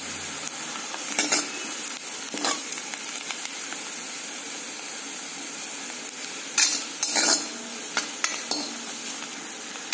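Chopped onion, about half fried, sizzling steadily in hot oil in a hammered metal kadhai, while a steel ladle stirs it with several scrapes against the pan, the loudest a little past the middle.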